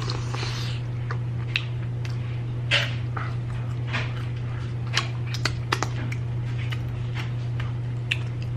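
Close-miked eating sounds: wet mouth smacks and crunchy chewing of fried food, about a dozen sharp clicks at irregular intervals, over a steady low hum.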